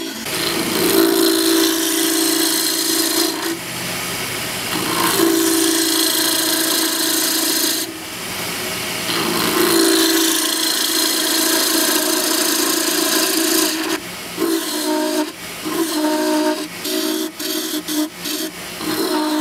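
Gouge cutting a spinning wooden spoon blank on a lathe: a rough hissing, scraping cut over a humming tone. It comes in three long passes and then shorter, broken cuts near the end.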